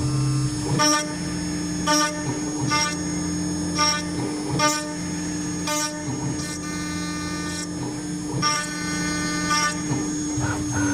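CNC router's 5.5 kW water-cooled spindle whining steadily while an end mill cuts 6061 aluminium, with short high ringing screeches from the cutter recurring about once a second. Near the end the whine drops slightly in pitch.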